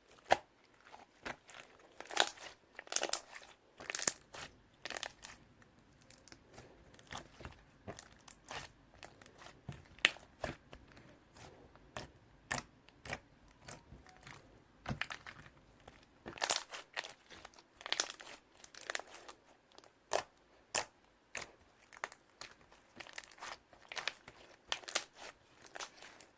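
Slime being pressed, folded and stretched by hand, giving off irregular sharp pops and crackles, sometimes several in quick succession.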